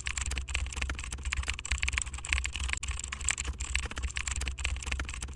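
Fast, continuous computer-keyboard typing clicks over a steady low hum.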